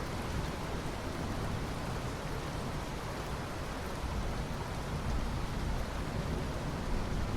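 Steady rain falling, an even hiss with a low thunder rumble underneath and no sharp claps.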